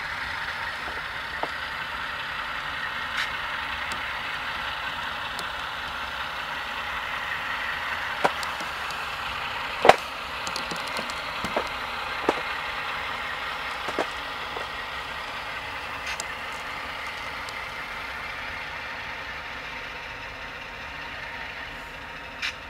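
Recorded ALCO diesel engine sound from the Tsunami sound decoders in model diesel locomotives, an RS11 and an RSD4/5 running together, a steady engine hum through their small speakers. Sharp clicks come now and then, and the sound fades slowly near the end as the locomotives move away.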